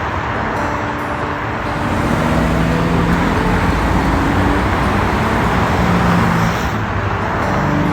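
City street traffic: a steady wash of tyre and engine noise from passing cars, with the low hum of heavier engines rising and falling in pitch.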